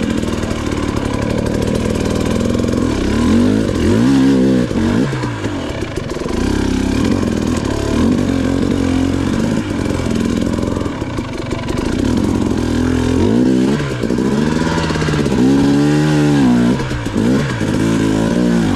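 Two-stroke dirt bike engine being ridden, revving up and falling back again and again as the throttle is worked.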